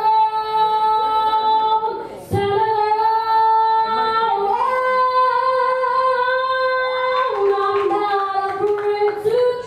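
A young woman singing solo into a microphone in long held notes, the pitch stepping up and down from note to note, with a short breath about two seconds in.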